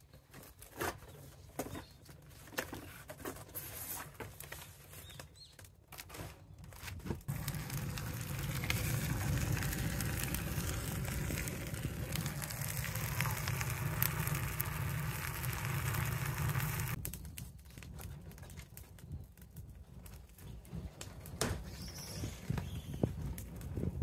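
Cardboard, dry leaves and twigs burning in a steel drum: crackling and popping, with a louder steady rush of fire noise for about ten seconds in the middle.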